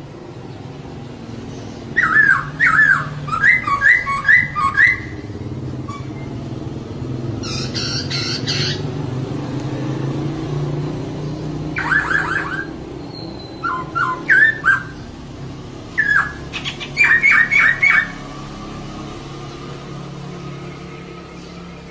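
Female poksay (laughingthrush) calling in several short bursts of quick, repeated chattering notes, with gaps between them. A steady low hum runs beneath, swelling in the middle.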